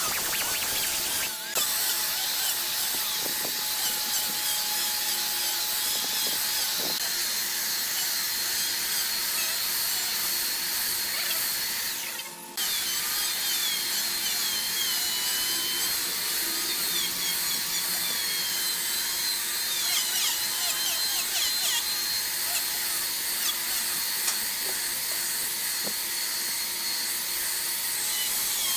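Electric sanders running on a solid-wood table top, a steady whir with a sanding hiss. First a random orbital sander, then, after a brief break about twelve seconds in, a belt sander.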